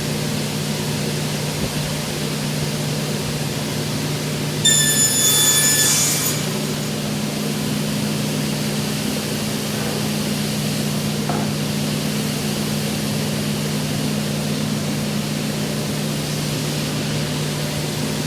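Altendorf WA 80 sliding table panel saw running with a steady hum. About five seconds in, the blade cuts through wood for about a second and a half, a louder high whine over the hiss of the cut.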